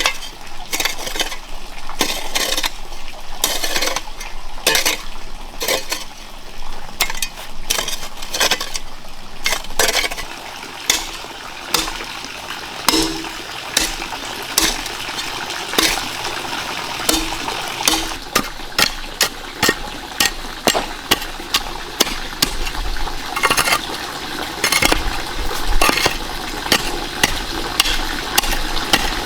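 Water splashing, with frequent sharp, irregular clinks and knocks of pots or dishes.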